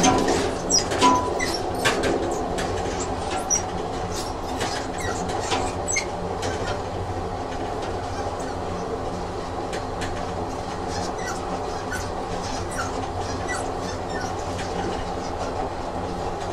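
Train sound effect: a train running on rails with a steady rumble, sharp clicks from the wheels over the track and a few brief high wheel squeaks. It is louder in the first couple of seconds.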